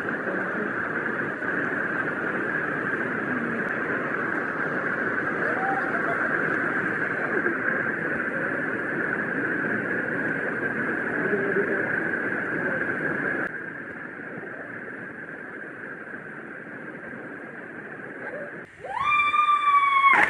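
Steady rush of falling water, dropping abruptly to a quieter rush about two-thirds of the way through. Near the end a high tone sweeps up and then down.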